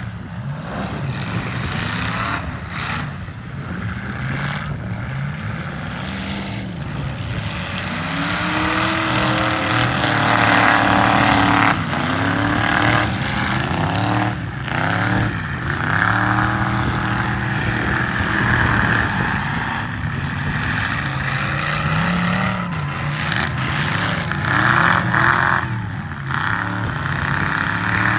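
Several demolition derby cars' engines revving up and down at once, pitches rising and falling, with a few sharp knocks of cars hitting each other a few seconds in, about halfway, and twice near the end.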